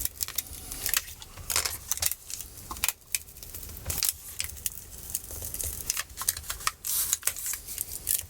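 Knife blade scraping and prying under a 2015 MacBook Pro's glued battery cells, with irregular sharp clicks and scrapes as the cells start coming away from the case.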